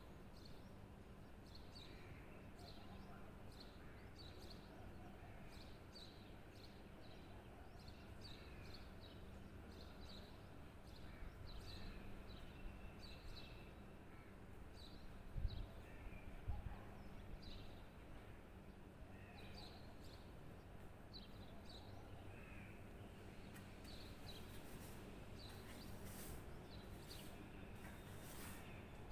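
Birds calling faintly, a steady run of short high chirps with some lower notes, over a low background rumble. Two dull thumps come about halfway through.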